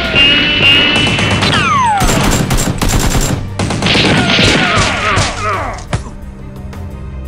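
Rapid bursts of gunfire sound effects over action music, with several falling whistle-like tones among the shots. The shooting stops about six seconds in, leaving the music.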